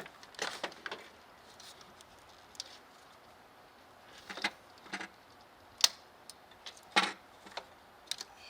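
Scattered light metallic clinks and knocks, about half a dozen separate strikes, from hand tools and loose metal parts being handled and set down.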